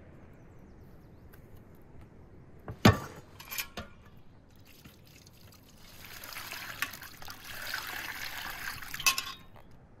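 Water poured from a metal kettle into a bowl holding a leg of lamb: a steady splashing stream lasting about three seconds from about six seconds in, ending with a clink. Earlier, about three seconds in, a sharp knock followed by a couple of lighter clicks.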